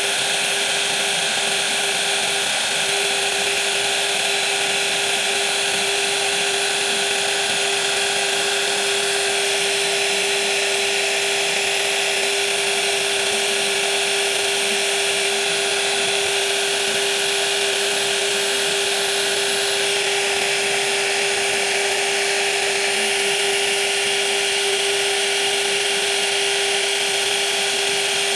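High-speed woodworking power tool running steadily, a constant whine over a dense hiss, with no change in speed or load.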